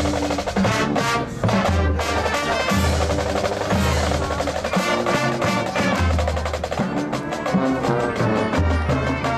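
Marching band percussion playing a fast passage: quick snare drum strokes and rolls over low held notes, with no brass lead.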